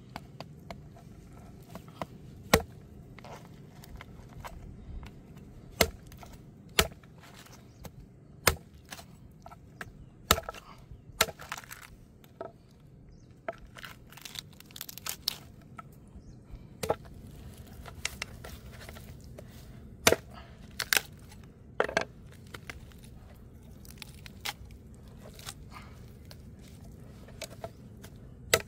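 Meat cleaver chopping a goat's head on a wooden board, hacking through the skull. Irregular, sharp chops, some loud and some light, with short runs of quick strokes.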